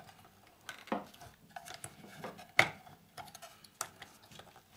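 Small metal parts clicking and clinking against each other and the Bakelite housing of an antenna rotor control box as fingers work them loose inside it. A few separate sharp clicks, the loudest about two and a half seconds in.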